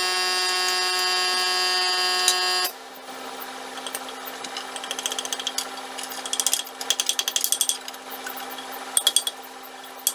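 A small power tool's motor hums steadily, then cuts off suddenly under three seconds in. Short runs of rapid clicking follow as the four bolts holding the circular saw under the board are tightened.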